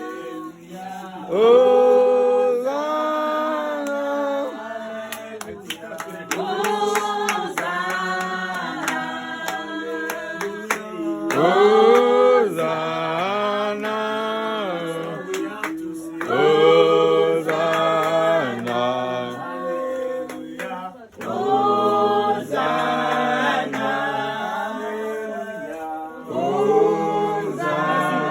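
A group of voices singing a Christian praise chorus together, unaccompanied, in sung phrases of a few seconds each with short breaks between them.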